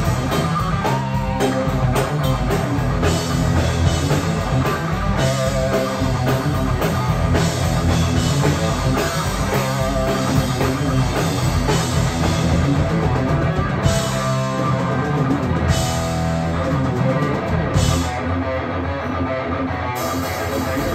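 Live rock band playing a loud instrumental heavy-metal passage: electric guitar, bass guitar and drum kit.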